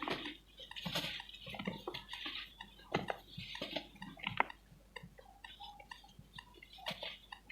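Lumps of pure cement being crumbled by hand: irregular soft crackling and crunching, with a few sharper cracks scattered through.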